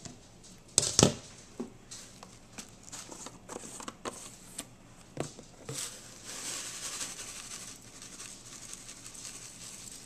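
A stainless steel pan lid clanks against a sauté pan about a second in, followed by light clicks and taps, then a soft hiss in the second half.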